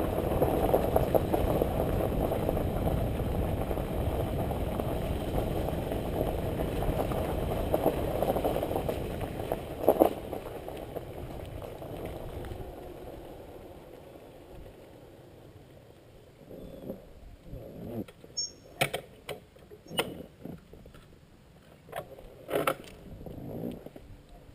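Riding noise of a Suzuki DR-Z400 dual-sport motorcycle on the camera mic: a steady rush of wind and running noise with a single sharp knock. The noise dies away over the middle of the stretch as the bike slows to a stop. A few scattered clicks and knocks follow.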